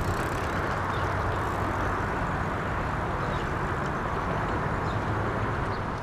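Steady rushing noise of riding a bicycle on a paved path: tyres rolling on the pavement with wind over the microphone.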